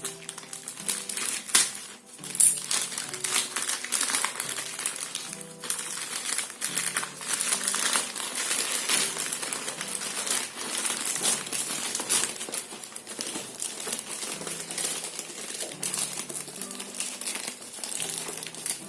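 Packaging crinkling and rustling irregularly as it is torn open and handled, over steady background music.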